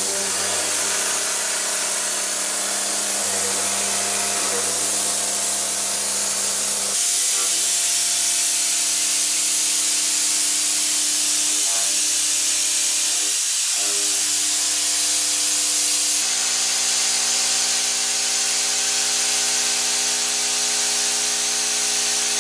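Vertical machining center face milling mold steel: a steady hum of the cutter's inserts striking the steel, over a loud, even hiss. The hum jumps to a new pitch twice, about 7 and 16 seconds in, as the cutter size and spindle speed change between cuts.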